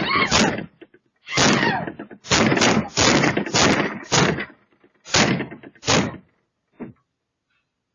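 Someone banging hard on a shop's window glass, about nine heavy blows in uneven runs, the last one faint, picked up by a security camera's microphone.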